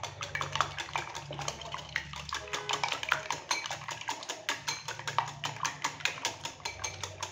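Small wire whisk beating raw eggs in a bowl: a fast, even run of light clicking and rattling as the wires strike the sides of the bowl.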